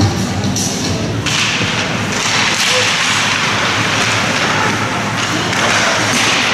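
Rink sounds of an ice hockey game in play: a thud right at the start, then from about a second in a steady, dense hiss of skates on ice and crowd noise, with a few sharper knocks.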